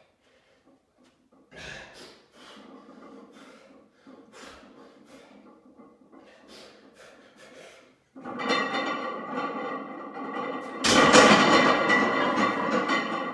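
A rack-pull lifter breathing hard in short sharp breaths while bent over the loaded barbell. About eight seconds in a loud, sustained straining sound starts, and it swells sharply about three seconds later as the 905 lb bar is pulled up to lockout.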